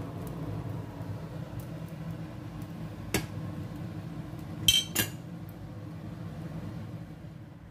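Kitchenware being knocked together: a single knock about three seconds in, then two sharp, ringing clinks in quick succession near five seconds, over a steady low hum.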